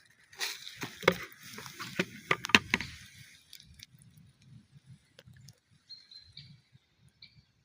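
Rustling with sharp crackling and snapping of dry forest-floor litter and twigs being handled, densest in the first three seconds, with a loud crack about two and a half seconds in. Afterwards only faint rustling, and a few faint high chirps near the end.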